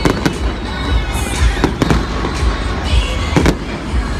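Fireworks display at close range: a rapid run of sharp shell bursts, about two a second, over a constant low rumble of launches and explosions.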